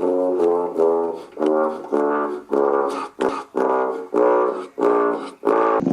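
Brass band music: a run of short, separate notes of about two a second, played by brass instruments.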